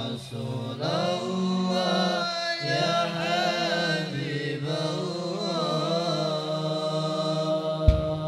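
Voices chanting an Islamic sholawat without accompaniment, a gliding, ornamented melodic line over a long held note. A single drum stroke lands near the end, the entry of the hadrah percussion.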